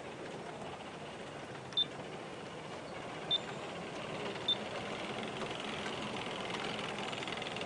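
Three short, high electronic beeps over a faint steady whir; the whir of the G-scale model train's locomotive motors grows louder near the end as the train gets moving.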